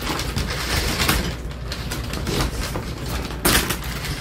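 Vinyl accordion folding door being pushed along its overhead track, its panels and hangers rattling, with sharp clacks about a second in and a louder one about three and a half seconds in.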